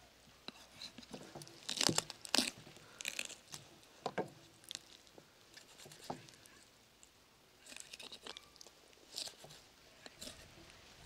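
A knife cutting into a raw lamb carcass: irregular crunching and tearing as the blade goes through flesh and sinew, loudest about two seconds in.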